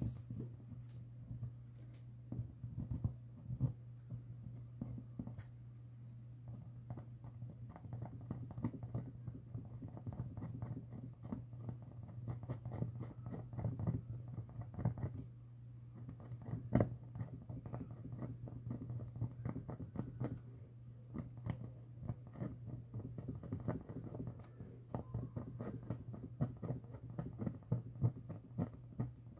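Close hand work on a small speaker: irregular light scratching, tapping and clicking, over a steady low hum.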